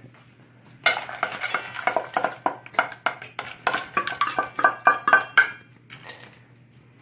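Blueberries tipped into a mixing bowl: a fast clatter of small knocks and clinks with the bowl ringing briefly. It starts about a second in and stops about six seconds in.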